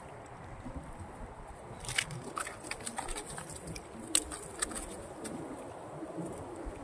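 Hands working through a nylon cast net weighted with lead sinkers, picking out fish: soft handling noise with scattered sharp clicks, the loudest about two and four seconds in.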